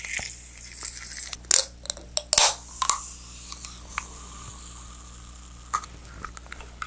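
Aluminium can of Filite Radler grapefruit (a carbonated beer-based drink) being opened close to the microphone. The pull tab clicks and cracks open, with the sharpest snaps between about a second and a half and two and a half seconds in. A faint steady fizz of the carbonated drink follows.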